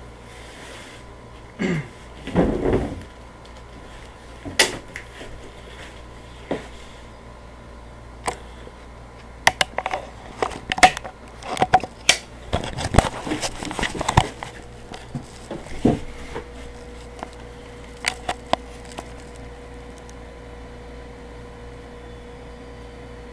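Camera handling noise as the camera is picked up and moved: a scrape with a falling pitch about two seconds in, then a run of knocks, rubs and sharp clicks, with a few more isolated clicks later.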